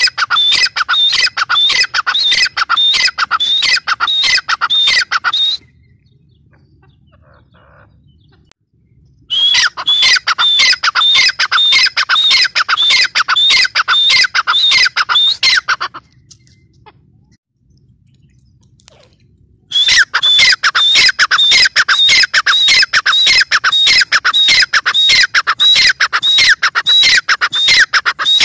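Teetar (francolin) calling in fast runs of sharp, repeated notes, about four a second. There are three long bouts, broken by pauses of a few seconds about five seconds in and again after about sixteen seconds.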